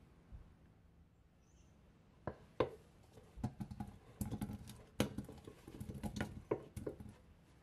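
Peeled potato chunks dropped into an empty enamel-lined pot and slid off a wooden cutting board into it, making a quick, irregular run of dull knocks and thuds over the last few seconds. Two sharp single knocks come just before, about two and a half seconds in.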